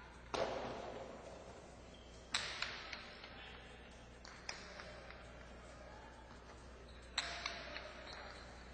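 Jai-alai pelota cracking hard off the fronton walls during a rally, each sharp strike ringing on in the big echoing court. Three loud strikes come about half a second in, at two seconds and near the end, and each of the later two is followed by a few softer knocks.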